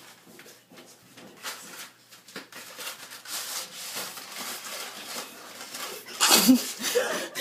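Dry noodles rustling and sliding against their cardboard box as they are tipped out over a pot. Near the end comes a louder clatter with a short breathy voice.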